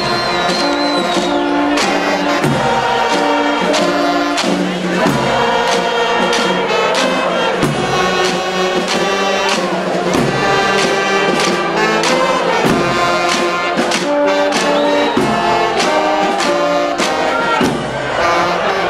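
A brass band playing a tune with regular drum beats, and a large crowd singing along.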